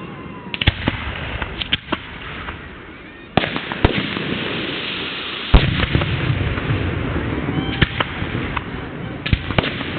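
Aerial fireworks bursting: sharp bangs and crackling shells. A dense crackle sets in about three seconds in, and the loudest boom comes about five and a half seconds in.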